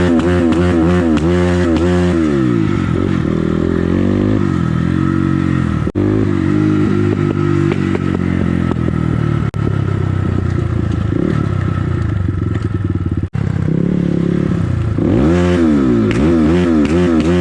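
Crossfire CX250R dirt bike engine under way, revving up and down repeatedly at the start and again near the end, with a steadier stretch in the middle full of rapid crackling from the exhaust. The audio cuts out briefly three times.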